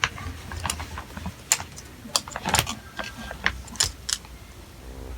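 A Pomeranian sneezing: a run of short, sharp sneezes and snorts about half a second to a second apart, the fullest one about two and a half seconds in.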